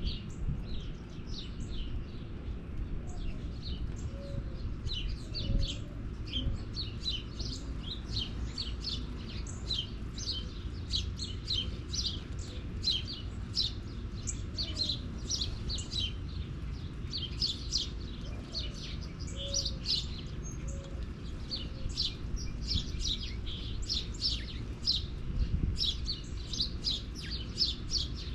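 Small birds chirping, many short high chirps a few each second without a break, over a low steady rumble.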